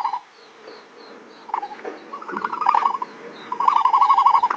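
Ostrich calling: a rapid, pulsing trill at one mid pitch, in bouts. One bout fades out just after the start, a short one comes about two seconds in, and another starts near the end.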